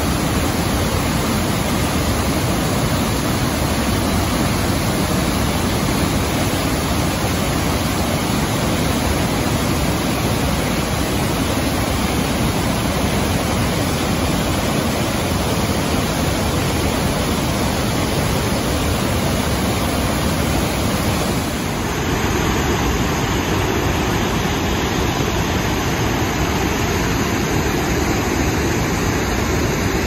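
The Rhine Falls' water rushing in a loud, steady wash of noise, its tone shifting abruptly about two-thirds of the way through at an edit.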